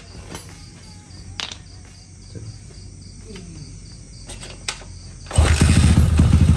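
A quiet background with a few faint clicks, then about five seconds in a motorcycle engine fires up suddenly and runs loudly with a rapid, uneven beat.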